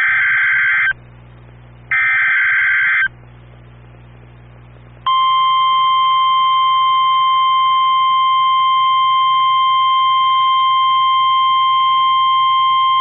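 NOAA Weather Radio emergency alert header for a tornado warning. The end of one harsh buzzing SAME data burst is followed by a second burst after a one-second gap. About five seconds in comes the loud, steady, single-pitch 1050 Hz Warning Alarm Tone, held unbroken.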